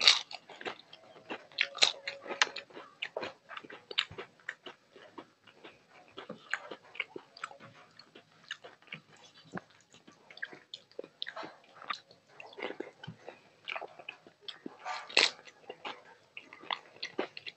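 Close-miked eating by hand: bites into crisp, battered fried vegetable pieces and chewing of rice and curry, with many wet mouth clicks and smacks. The loudest bites come right at the start and again about 15 seconds in.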